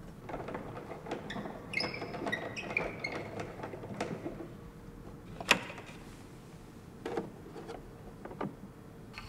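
A gramophone and its record being handled: faint clicks and scrapes, brief small squeaks around two seconds in, and one sharp click about five and a half seconds in.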